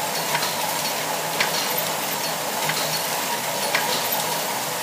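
Circular sock-knitting machine running, its needles giving a dense, steady crackling clatter, with a sharper click about once a second.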